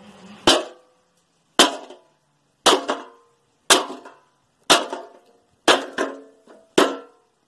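A hammer strikes a metal folding chair's frame to break it apart: seven hard blows about a second apart. Each blow has a short metallic ring, and several are followed by a smaller clatter.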